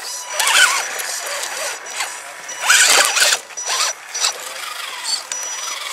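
Electric motor and geared drivetrain of a radio-controlled scale crawler whining in several short throttle bursts, the pitch rising and falling each time, with scraping bursts as its tyres work over logs.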